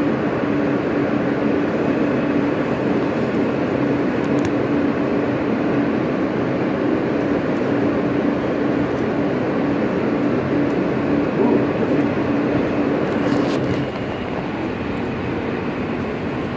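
Alstom R160A New York City subway car running between stations, heard from inside the car: steady loud rumble and rail noise with a steady low hum. About 14 seconds in the noise drops somewhat.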